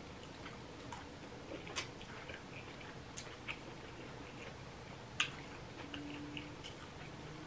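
Quiet close-miked chewing of a mouthful of collard greens, with a few short sharp clicks as the fork works the food on the plate, the loudest about five seconds in.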